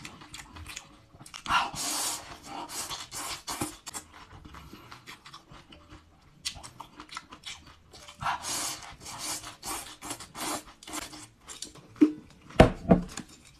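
Close-up eating of a crunchy cold shredded-vegetable salad: wet chewing with many small crunches, and two loud slurps as long mouthfuls are sucked in, about a second and a half in and again around eight seconds. A few low knocks near the end.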